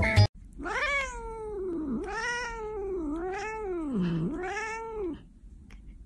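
A cat yowling in four long calls, back to back, each rising and then falling in pitch. The calls stop about five seconds in.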